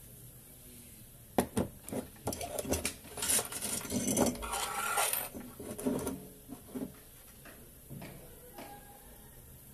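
Sheet-metal chassis and small parts being handled and shifted on a workbench: two sharp clicks, then a few seconds of metallic clattering and scraping, then a few light clicks as things settle.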